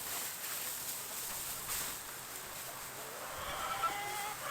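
Chickens calling in the run: faint drawn-out, wavering calls from about three seconds in, over a steady faint hiss.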